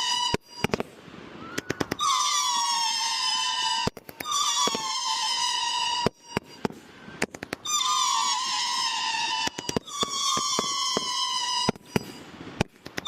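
Fireworks going off in a repeating sequence: about four whistles in a row, each a slightly falling whistle lasting roughly two seconds. Each whistle ends in a cluster of sharp pops and crackles.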